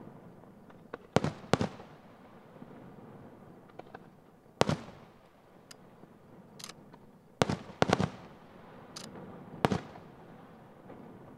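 Aerial firework shells bursting, about seven sharp booms at irregular intervals with echoing tails, and a few fainter high crackles in between.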